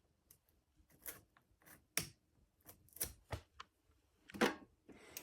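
Light, irregular clicks and taps, about a dozen spread unevenly, from the plastic switches and parts of a Snap Circuits fire alarm panel being handled.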